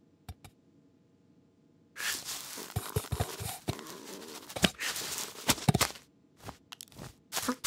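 Cartoon cat rummaging in a sack: a couple of small clicks, then from about two seconds in a busy run of rustling, crinkling and tearing with quick scrabbling clicks, pausing briefly near the end.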